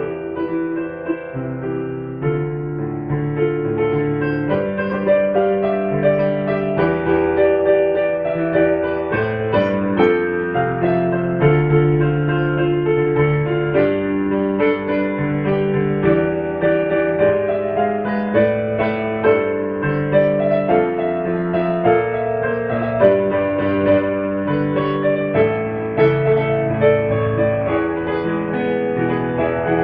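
Background piano music: a slow, gentle piano tune played in a steady flow of notes.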